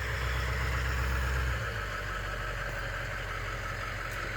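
A vehicle's engine running slowly or idling close by, a steady low hum whose deepest part eases off about one and a half seconds in.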